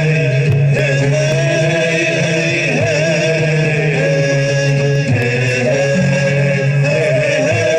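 Chanted vocal music over a steady low drone, the voice holding long wavering notes.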